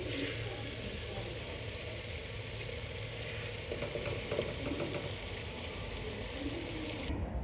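Beef masala with onion, ginger and garlic sizzling in plenty of oil in a pressure cooker pot, a wooden spoon stirring through it with a few light scrapes and taps against the pot: the bhunai, the browning stage of haleem. The sizzle cuts off suddenly near the end.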